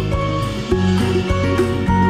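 Background music: a plucked-string tune over a bass line with a steady beat.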